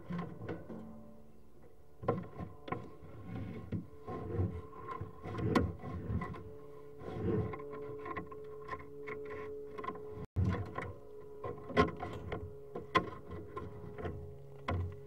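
Irregular knocking, clattering and scraping from a sewer inspection camera's push cable being worked in a drain pipe, over a steady electrical hum from the camera unit.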